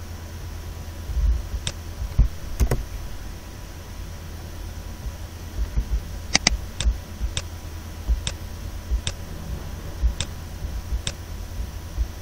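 Scattered sharp computer mouse clicks, about one a second in the second half, over a steady low hum.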